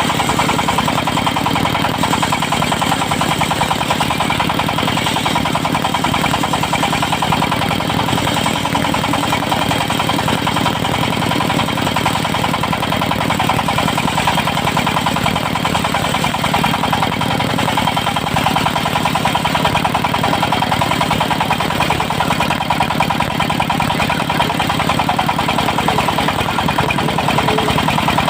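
Diesel engine of a portable circular sawmill with a 70 cm blade running steadily, a fast even firing beat under a steady high tone.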